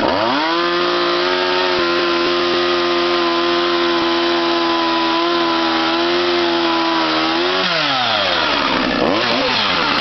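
Poulan 2150 two-stroke chainsaw revved up to high speed and held there steadily for about seven seconds. The throttle is then released and it drops back toward idle, with one short blip of the throttle near the end.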